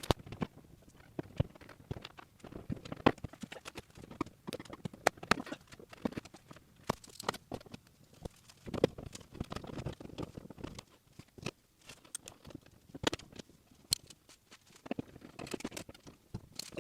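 Irregular clicks, taps and knocks of hands and small hardware working inside a car door while the window glass is fitted onto the new window regulator.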